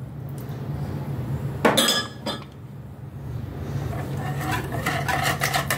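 A glass measuring jug clinks as it is put down, about two seconds in. From about four seconds in, a wire whisk beats oil and orange juice in a plastic bowl in quick, even strokes, over a steady low hum.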